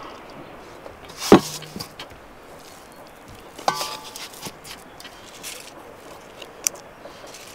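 Two knocks on an enamel bowl, each with a brief metallic ring, as marinated pork rib racks are laid into it, followed by lighter clicks and handling sounds.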